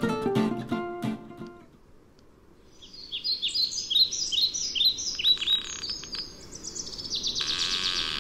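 Plucked acoustic guitar music fades out in the first second or two, then a songbird sings: a run of repeated falling chirps, about two a second, breaking into a fast trill near the end.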